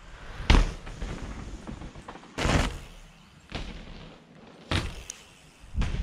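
A steel hardtail mountain bike landing and hitting the dirt trail, about five heavy thuds with rolling tyre noise between them; the first, about half a second in, is the loudest.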